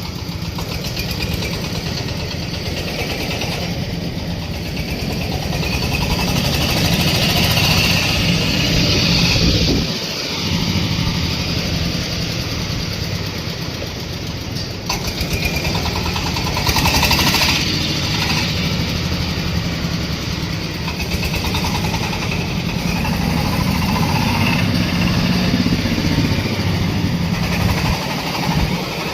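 Corn sheller machine running, driven by its 26 hp engine, with a steady, loud mechanical clatter; a brief downward sweep in pitch about ten seconds in.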